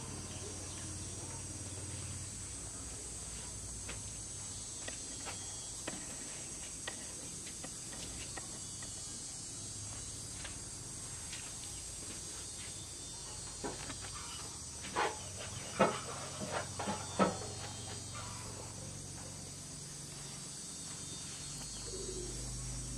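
Steady high-pitched insect chorus over a low hum. A handful of sharp clicks and taps, the loudest sounds, come close together about two-thirds of the way through.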